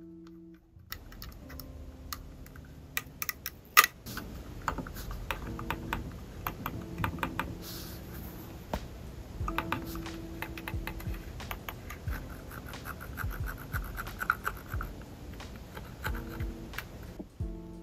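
Logitech Pebble M350 mouse being handled and clicked: many light, uneven clicks of its quiet-click buttons, with one sharper click about four seconds in, and some rubbing of hands on the plastic shell.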